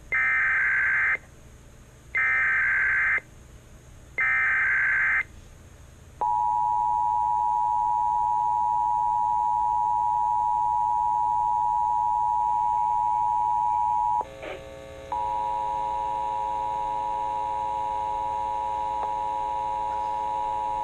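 Emergency Alert System encoder/decoder (Sage ENDEC) sending an alert: three short screeching digital SAME header bursts, one per second, then a steady EAS attention tone. About 14 seconds in, the tone turns into a harsher, distorted buzz of many steady tones that carries on to the end.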